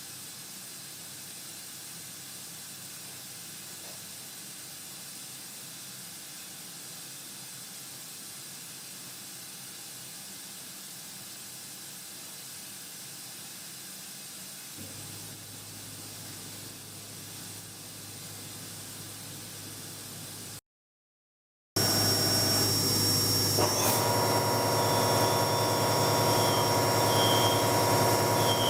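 Machining center gun drilling into metal. For about twenty seconds there is a steady hiss, with a low hum joining about fifteen seconds in. After a brief break the sound becomes much louder, with steady high-pitched whining tones over the machining noise.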